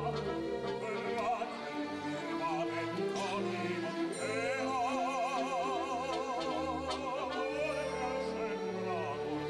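Zarzuela singing: operatic voices holding long notes with strong vibrato over orchestral accompaniment.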